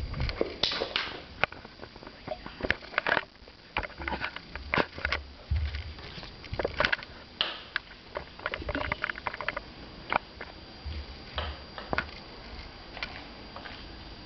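A cat batting and chasing a hard cough drop across a floor: irregular small clicks and clatters of the drop skittering, with a few soft thumps between them.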